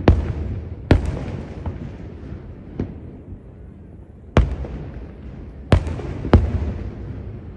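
Aerial fireworks shells bursting in a display: about six sharp booms at irregular intervals, one of them weaker, each trailing off in a long low rumble.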